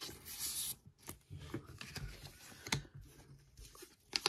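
A trading card being slid into a plastic card sleeve: a soft rustling hiss in the first second, then a few light taps and clicks as the cards are handled.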